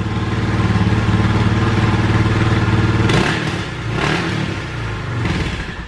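Suzuki DR650's single-cylinder four-stroke engine running steadily, then blipped with the throttle about three seconds in, revs rising and falling. It is running on its cleaned original carburetor jets after a rebuild, and the smaller jets had left it short of fuel and bogging.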